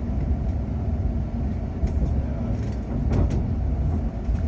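Steady low rumble of a passenger train running on the rails, heard from inside the carriage, with a few short clicks.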